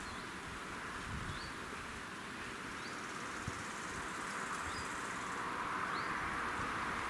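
A bird gives a short rising chirp again and again, about every second and a half, over a steady outdoor hiss that slowly grows louder toward the end.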